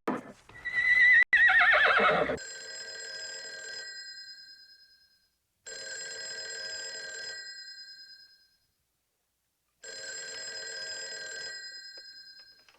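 A horse whinnies for about two seconds. Then a telephone bell rings three times, each ring lasting about three seconds with short pauses between.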